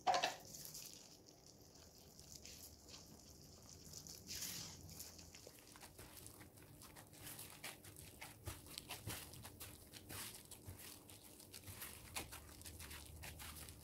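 Faint, irregular squishing and crackling as a plastic-gloved hand mixes sticky flour and olive-oil dough in a wooden bowl, after a brief louder sound right at the start.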